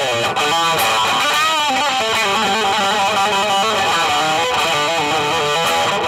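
Gibson 2019 Les Paul Standard electric guitar played through a Blackstar HT Soloist 60 tube amplifier: a single-note lead line with bent notes and vibrato.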